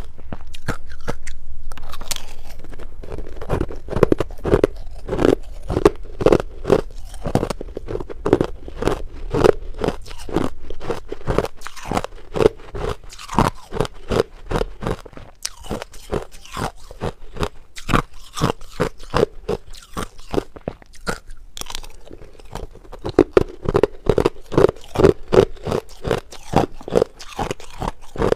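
Crushed ice being bitten and chewed right at a clip-on microphone: hard crunches in quick succession, several a second, with no break.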